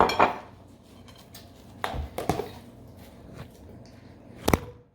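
A few sharp clinks and knocks of dishes and utensils being handled while plates are fixed, the loudest one near the end.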